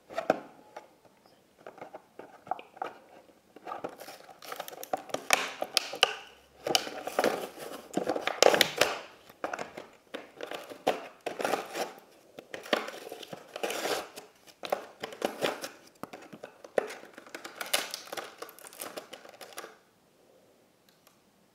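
Clear plastic toy packaging crinkling and crackling as it is handled, in irregular bursts that stop near the end.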